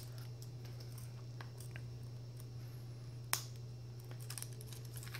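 Scattered light clicks and taps of fingers working the plastic and flex-cable parts inside an opened tablet, with one sharper click a little past halfway, over a steady low hum.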